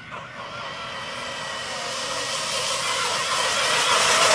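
Radio-controlled car driving across water: a steady, high motor whine with a spreading hiss of spray, growing louder as the car comes closer.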